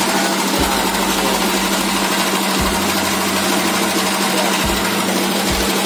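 A small engine running steadily, with a constant low hum and a few low thumps.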